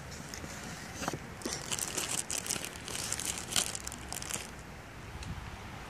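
Plastic zip-top bag crinkling as skirted fishing jigs are handled and pulled out of it: a run of short crinkles starting about a second in and dying away before the end.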